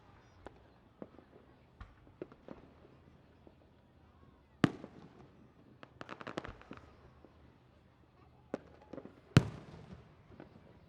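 Fireworks going off in a display. Two loud booms come about five seconds apart, each with a fading rumble after it. Between them is a quick crackling run of small pops, and fainter pops are scattered through the rest.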